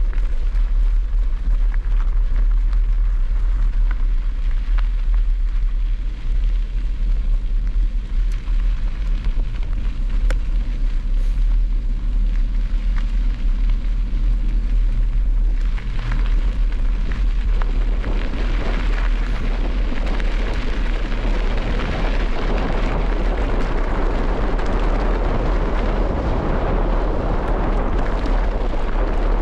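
Wind buffeting a bike-mounted action camera's microphone while riding a mountain bike along a gravel track, a steady heavy low rumble. A little past halfway the hiss and crunch of tyres rolling over loose gravel grows louder.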